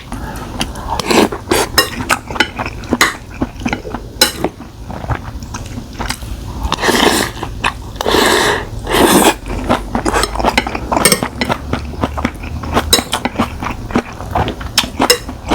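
Close-miked eating sounds of spicy stir-fried webfoot octopus: chewing and biting with frequent sharp clicks of utensils against a dish. A few longer, louder bursts come about halfway through.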